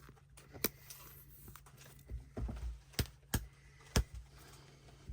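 A handful of short, sharp taps and clicks, unevenly spaced, with a few soft low thuds, from trading cards and card packs being handled.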